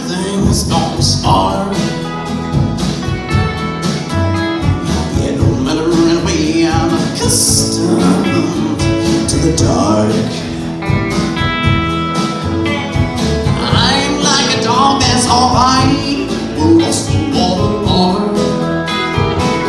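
Country band playing live: strummed acoustic guitar, plucked upright bass and steel guitar, with an electric guitar.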